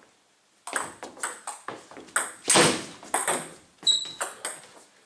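Table tennis rally: the ball clicks sharply off bats and table in quick succession, starting under a second in, with a short high squeak about four seconds in.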